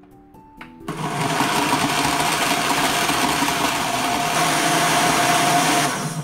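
Countertop blender with a glass jar running at speed, blending banana, carrot and apple into a smooth shake. It starts about a second in, runs steadily for about five seconds and cuts off just before the end.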